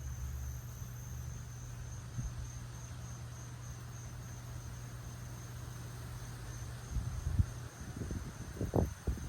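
Crickets chirping steadily in a continuous high trill, over a low steady hum. A few soft low thumps come in the last couple of seconds.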